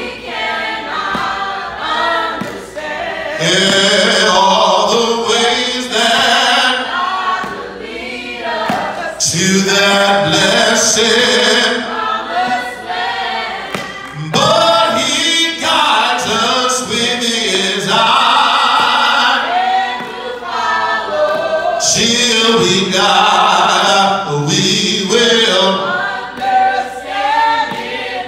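A man singing a slow gospel hymn with long, drawn-out held notes.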